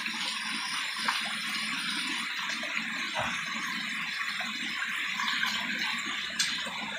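Shallow stream running over rocks: a steady rush of water, with a couple of faint knocks.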